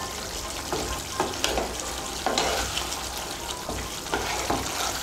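Soya chunk and potato curry sizzling in a pan over a raised flame while a spatula stirs it, with irregular scrapes of the spatula against the pan over a steady hiss.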